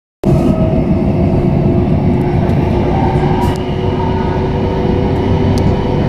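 Gautrain electric train heard from inside the carriage while running: a steady rolling rumble with a constant hum of motor tones over it. It starts after a split-second dropout.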